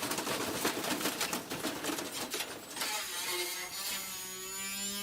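Washing machine spinning hard with a brick thrown inside, drum banging and clattering rapidly. About three seconds in the clattering stops, leaving a steady motor hum with a faint high whine.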